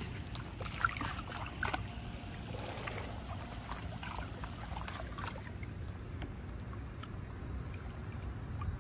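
Shallow water splashing and sloshing as a wet carp retainer sling is lowered in and two common carp are let out into the water by hand. There are short splashes in the first few seconds, then gentler lapping, over a steady low rumble.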